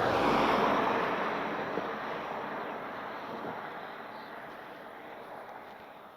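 A car passes close by on the road, its tyre and engine noise loudest at the start and then fading away steadily over several seconds.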